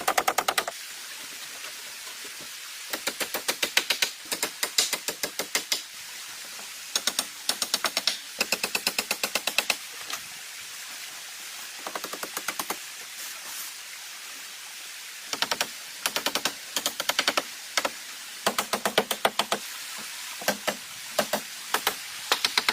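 Runs of quick, sharp taps or strikes, about eight to ten a second, coming in bursts of a second or two with short pauses between them, over a steady background hiss.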